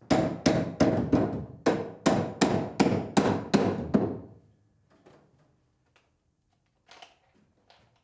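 A hammer struck about a dozen times in quick, even succession, roughly three blows a second, each ringing briefly. The hammering stops a little past halfway, leaving a few faint knocks.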